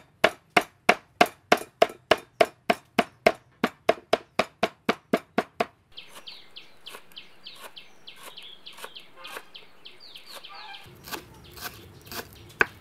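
Cleaver chopping lemongrass on a wooden cutting board: sharp, even knocks of the blade on the board, about three and a half a second. About six seconds in the chopping turns fainter and lighter, with birds calling over it.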